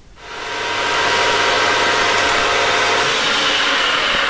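Metal lathe starting up: the motor and spindle come up to speed over about a second, then run steadily, with a higher whine coming in near the end.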